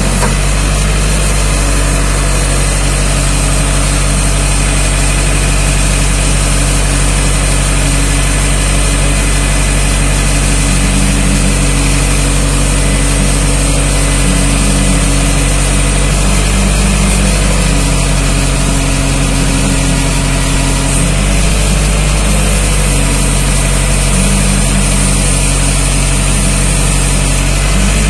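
Truck engine of a crane truck running steadily while the crane lifts a pallet of concrete curbs, its note shifting a little now and then.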